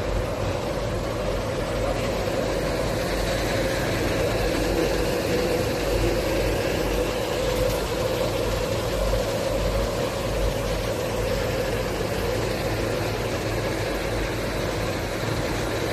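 Insulating-glass production line machinery running: a steady mechanical hum of motors and blowers with a constant mid-pitched drone.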